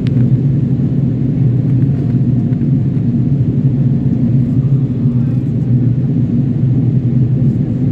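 Steady low roar inside the cabin of an Airbus A330-300 descending on approach: airflow and its two Rolls-Royce Trent 772B engines.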